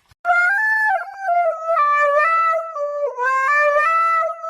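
A high, reedy wind instrument playing a slow tune of held notes that step up and down in pitch.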